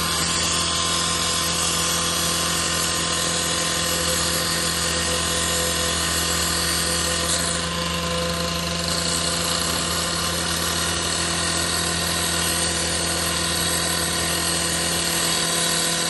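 Two-stroke cut-off saw running at high speed, its blade grinding steadily through steel rebar.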